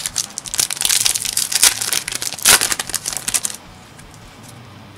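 Foil Yu-Gi-Oh booster pack wrapper crinkling as it is handled and torn open, for about three seconds, loudest about two and a half seconds in.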